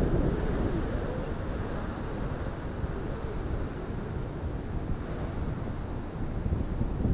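Twin electric ducted fans of an E-flite A-10 Thunderbolt II RC jet whining high in flight, the whine stepping up briefly about a second in, then dropping back and sliding lower near the end. Under it, a steady rush of wind noise.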